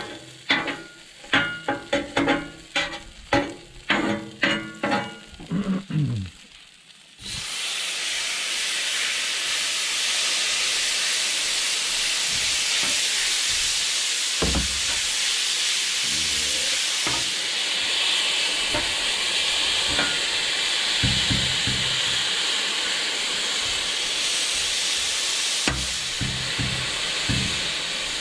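A run of about a dozen sharp, ringing knocks, then a sudden start about seven seconds in of a loud, steady sizzle as raw marinated steak strips go onto the hot steel top of a Blackstone flat-top griddle. A few short knocks of a metal spatula on the steel sound through the sizzle as the strips are spread and turned.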